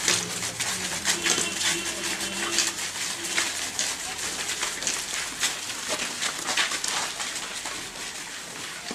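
Pigeon cooing: a low, drawn-out coo through the first few seconds, over a steady run of small clicks and rustling.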